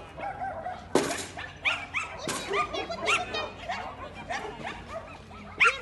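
Welsh terrier barking repeatedly while running, quick short high barks one after another, with two sudden short bursts of noise about one and two seconds in.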